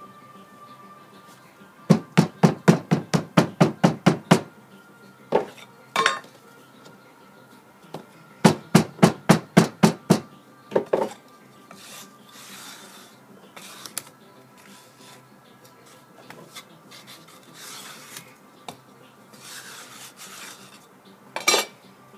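Molding sand being pounded down into a metal mold flask with a hand rammer: two quick runs of sharp strikes, about a dozen and then about nine, roughly five a second. A few single knocks and soft scraping of sand follow.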